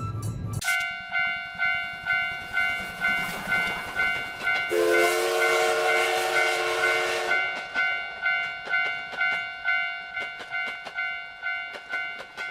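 Japanese railroad-crossing warning bell clanging steadily at about two strikes a second, starting half a second in as the music cuts off, then fading near the end. About four and a half seconds in, a train horn sounds a chord for about two and a half seconds over the bells, with a rush of noise.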